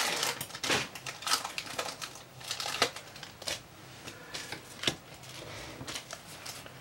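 Pokémon booster pack and cards being handled: irregular short crackles and clicks of the foil wrapper crinkling and cards knocking and sliding together.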